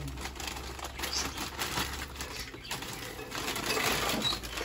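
A plastic Paketaxo snack bag crinkling as the chips are shaken out of it onto a plate, a steady crackle of many small clicks and rustles.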